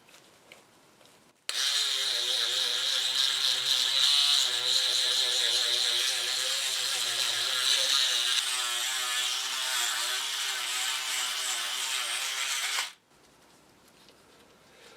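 A small electric power tool is switched on, runs for about eleven seconds and then cuts off suddenly. The pitch of its motor wavers as it is loaded, over a steady high hiss.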